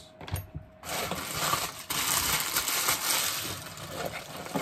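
Packing paper crinkling and rustling as hands rummage through the wrapping inside a cardboard box, starting about a second in and going on steadily.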